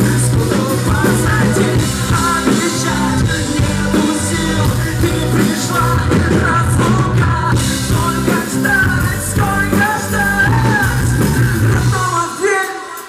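Rock music with singing over a full band.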